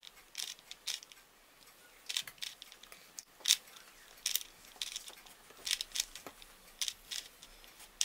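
4x4 Rubik's cube being turned by hand, its plastic layers clicking and clacking in short, irregular snaps, roughly two a second.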